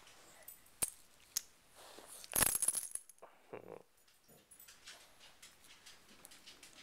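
Metal ID tags on a small dog's collar clinking as the dog moves its head close to the microphone: two sharp clinks about a second in, then a louder jingle with rustling bedding around the middle. A short low grunt follows just after.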